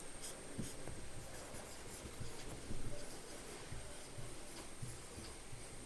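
Faint sounds of handwriting: a pen or marker moving in short soft strokes.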